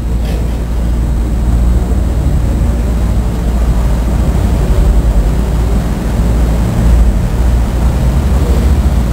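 Steady low rumble with a hiss over it: air from the running wall fans buffeting the microphone.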